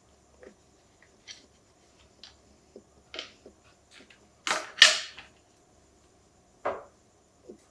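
Handling a carbon-fibre phone case: small scattered clicks and taps, with two loud sharp clicks in quick succession a little after halfway and a smaller one near the end.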